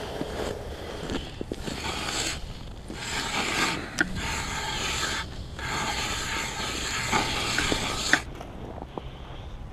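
Rubbing and scraping handling noise, in long stretches of a second or two with short breaks, and a few sharp clicks. It is most likely the knit hat and winter jacket rubbing against the camera as the wearer moves.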